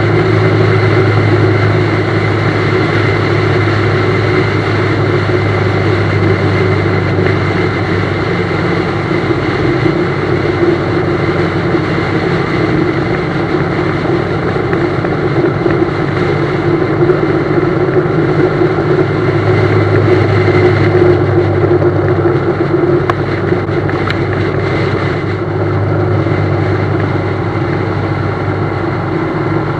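BMW GS motorcycle engine running steadily under way, with road and wind noise. The low engine note weakens in the middle and comes back strongly about twenty seconds in.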